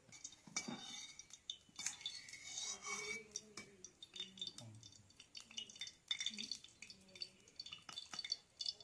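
Faint, scattered clinks and scrapes of a metal spatula against an aluminium kadai holding hot oil.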